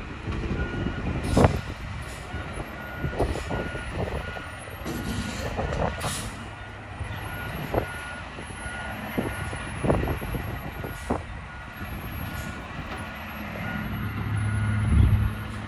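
Front-loader garbage truck backing up: its reversing alarm beeps in an even repeating pattern for several seconds over the running diesel engine, with several sharp clanks and air hisses. Near the end the engine revs up and grows louder.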